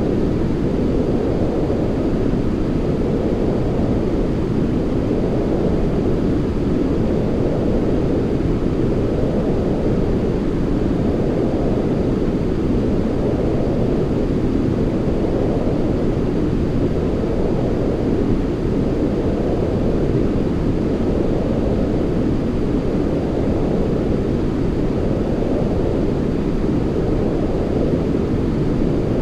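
Steady white noise for sleep, a deep, low rushing hiss with little treble, swelling gently about every two seconds.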